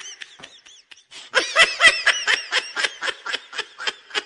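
A person laughing in quick repeated bursts of "ha-ha-ha". The laughter is softer for the first second or so, grows louder, then tails off near the end.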